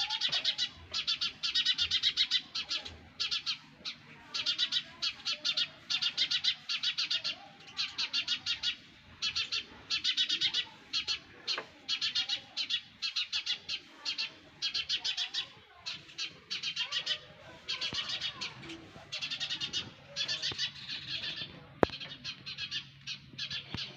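Sparrow nestlings chirping in the nest: quick trains of high chirps in bursts of under a second, one burst after another with short gaps. A single sharp click comes near the end.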